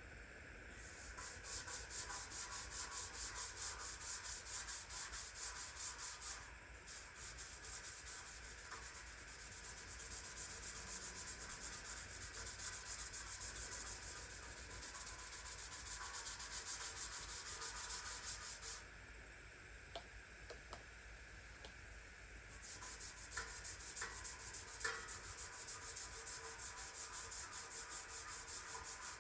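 Hand scrubbing of the wringer washer's surface with a soapy cloth or scrub pad in rapid back-and-forth strokes. The scrubbing stops for a few seconds about two-thirds of the way through, then picks up again with a couple of light clicks.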